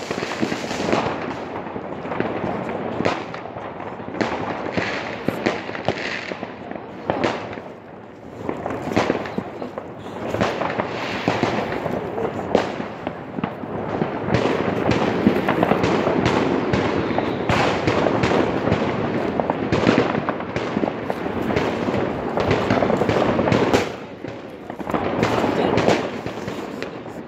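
Fireworks and firecrackers going off all around without pause: many sharp bangs and pops over a dense, continuous crackle, thickest in the middle stretch.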